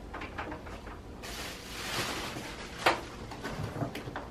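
Packing material rustling inside a cardboard shipping box as items are dug out by hand: a rustle of about a second, then a sharp knock and a few light taps.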